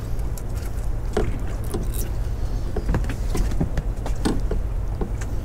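A steady low rumble, with a few light clicks and knocks as a deep-set hook is turned and pushed out of a bass's mouth with a metal disgorger.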